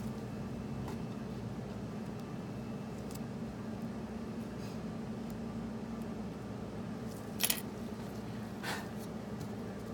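Steady low room hum with faint scratching of a hand instrument on dental stone. About seven and a half seconds in, a quick double clatter of metal, then a shorter scrape about a second later as the denture flask is handled.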